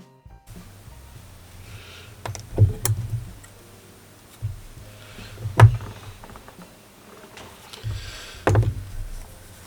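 Handling noise from hands working a crocheted piece close to the microphone: soft rustling with three louder knocks or thumps, about three seconds apart.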